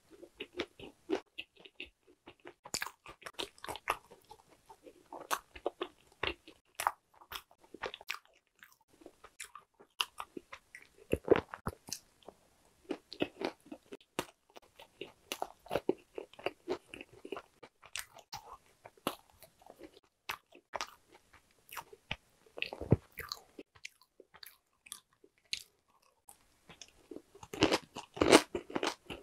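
Close-miked chewing of Korean walnut cakes (hodu-gwaja), the whole walnut pieces inside crunching with each bite. The crunches come in irregular runs with short pauses, loudest near the end.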